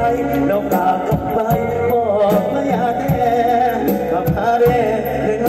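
Live mor lam band music played over a loud sound system: a steady drum beat under a wavering melody line.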